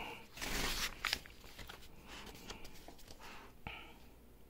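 Rustling from things being handled: a swish lasting about a second near the start, then softer rustles and a brief scrape near the end.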